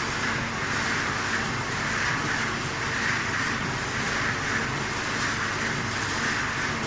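Gas-fired rotating-drum tea roaster running with tea leaves tumbling inside: a steady rushing hiss with a faint low hum underneath.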